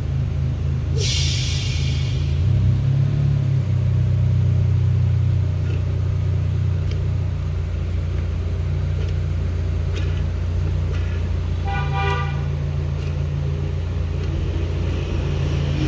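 Steady low mechanical hum that shifts in pitch about three to four seconds in, with a short burst of hissing about a second in and a brief horn-like tone near twelve seconds.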